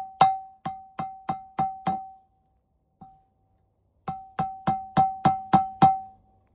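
Rapid, evenly spaced hammer blows on metal, about three a second, each ringing with the same clear tone. One run of blows stops about two seconds in, a single light tap follows, then another run of about seven blows.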